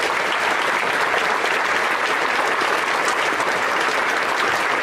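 An audience clapping, a steady round of applause.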